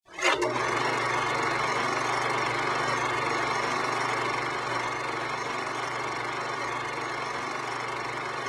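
A steady, even hum with a hiss over it, like a machine or fan running, after a brief click at the very start.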